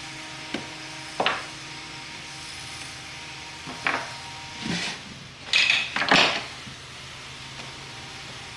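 Hand tools handled on a wooden workbench: a few sharp knocks, then a louder clatter and scrape about five and a half to six seconds in.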